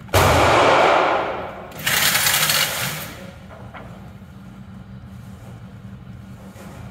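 Gunfire echoing in an indoor shooting range: a loud shot right at the start that rings away over a second or so, then a second longer burst about two seconds in. A steady low hum runs underneath.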